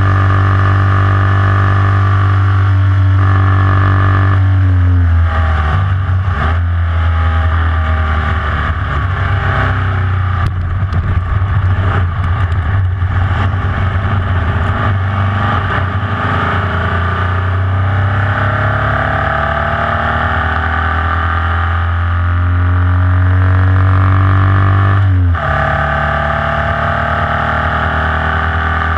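Air-cooled Volkswagen flat-four of a Formula Vee race car, heard from onboard, running at full throttle. About four and a half seconds in the engine note drops as the car goes off the track, then comes a rough stretch of knocks and rattling as it crosses the grass, with the revs climbing again; near the end the note drops suddenly at a gear change and settles to steady high revs.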